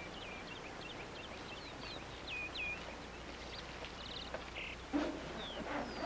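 Faint bird chirps: a string of short, quick notes in the first few seconds and a brief trill about four seconds in, over a quiet outdoor background.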